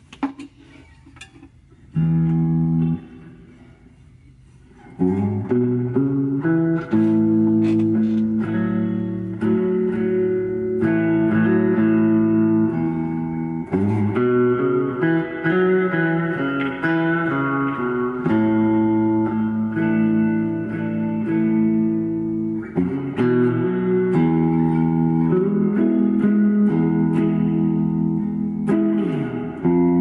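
1968 Guild Starfire electric guitar being played in a slow improvised jam: a single chord struck about two seconds in and cut short, then from about five seconds on, continuous ringing chords mixed with picked single notes.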